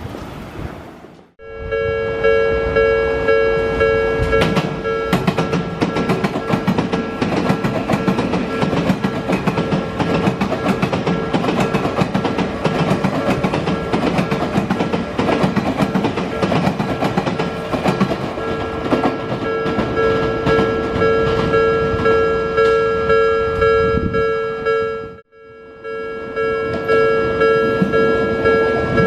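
Japanese railway level-crossing alarm ringing with a fast, repeating electronic ding while an Odakyu Romancecar EXEα express passes, its wheels clacking over the rail joints. The sound cuts out briefly about a second in and again near the end.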